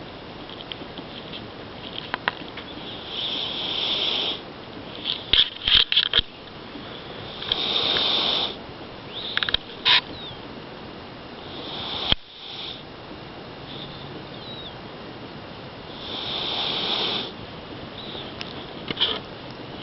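Sleeping cat snoring: a breathy snore rises and falls about every four seconds. A few short sharp clicks come between the snores and are the loudest sounds.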